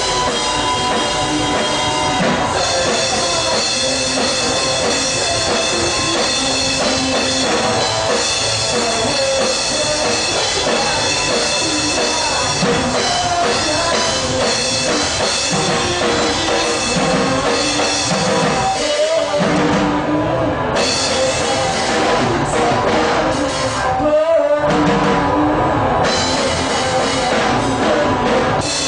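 Rock band playing live, with drum kit, guitars and bass, loud and continuous.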